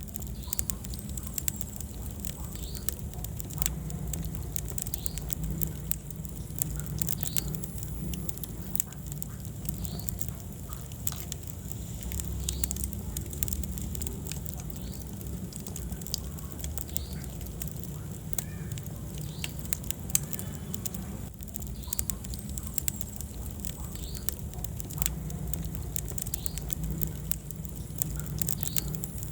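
Wood fire burning in a fireplace, crackling with frequent sharp pops over a steady low rumble of the flames.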